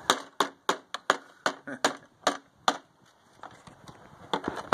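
A child banging a toy hammer on a toy tool bench: about ten quick, sharp knocks, three or four a second, then a pause and two lighter taps near the end.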